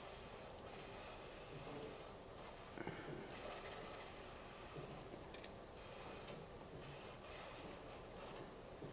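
Go-kart roller drive chain clicking and rattling over its sprockets as the raised rear wheel is turned by hand, with a few short hisses of spray chain lube, the loudest about three and a half seconds in.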